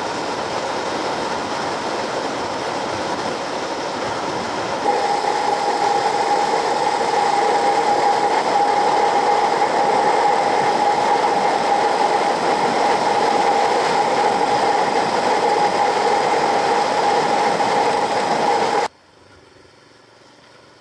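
Suzuki DR650 motorcycle at steady riding speed, picked up by a bike-mounted camera: rushing wind and running noise, with a steady whine that joins about five seconds in. The noise drops off abruptly near the end.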